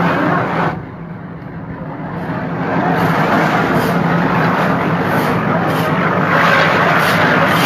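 A steady engine running, with a dip in level about a second in before it comes back louder.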